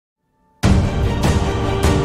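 Intro theme music that starts abruptly about half a second in, with a heavy beat roughly every 0.6 seconds.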